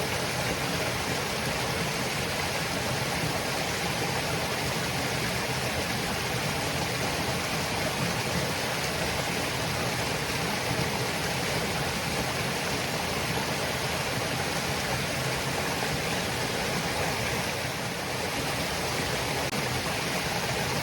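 Hiji Falls, a waterfall, rushing steadily: falling water pouring and splashing in an even, unbroken roar of noise.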